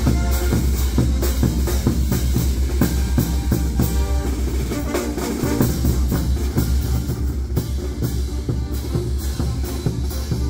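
Music with drums keeping a steady beat over a heavy, constant bass.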